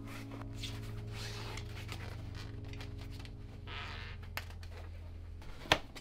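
A bicycle tyre being worked onto a deep-section road rim by hand: rubber rubbing and scraping against the rim, with a sharp click a little before the end. A faint low steady tone hums underneath.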